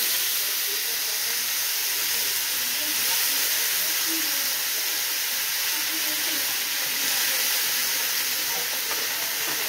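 Vegetables frying in hot oil in a kadai: a steady, loud sizzle.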